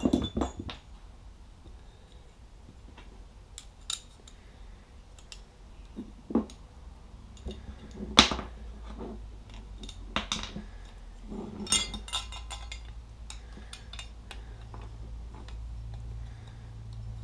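Small metal bracket plates and screws being handled on a wooden workbench: irregular clinks and knocks as the parts are picked up, set down and fitted together. The sharpest knock comes about eight seconds in, with a quick run of clinks around twelve seconds.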